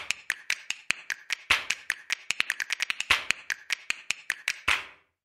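A rapid series of sharp taps, about four to six a second, three of them louder with a short ring, stopping near the end.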